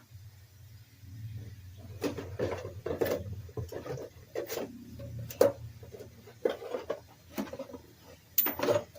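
Old lawn mower deck spindle spun by hand, its worn bearings giving a low, continuous grinding rumble, with knocks and clatter from handling the spindle housing.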